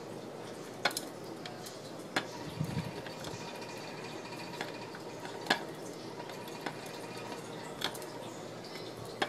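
Irregular sharp clicks and taps, a second or more apart, of a small turtle's claws and shell on the hard plastic of a hamster wheel as it walks inside it, over a steady low hiss. A soft low thump comes about two and a half seconds in.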